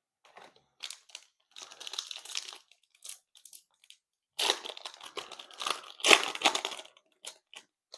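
Foil trading-card pack wrapper being crinkled and torn open by hand, in irregular bursts, loudest about halfway through and again near the end.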